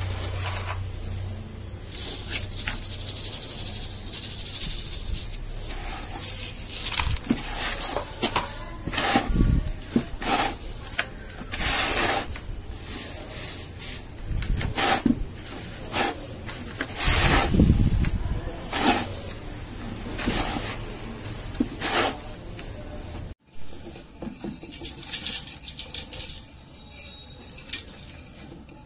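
Dry, dusty sand being sifted through a plastic mesh sieve and crumbled by hand: a run of sharp taps and gritty rustles. About 23 seconds in the sound cuts to softer crumbling of dusty sand in a clay pot.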